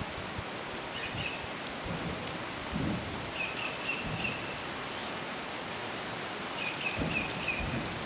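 Steady rain hiss with dull, distant low booms, one about three seconds in and another near the end. This is the unexplained booming that comes during rain, too rhythmic for thunder. A few short high chirps sound over the rain.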